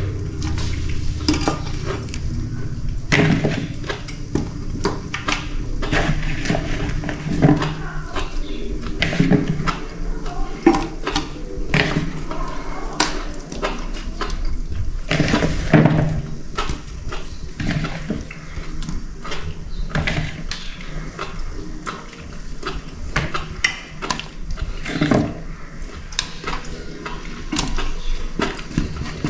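Whole peeled potatoes dropped one at a time into an aluminium pot of meat broth, giving irregular knocks and clatter against the pot. A wooden spoon knocks and scrapes against the pot toward the end.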